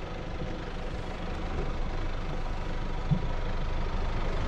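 Isuzu D-Max pickup's diesel engine running at low speed as the truck crawls up a steep off-road slope, growing slowly louder.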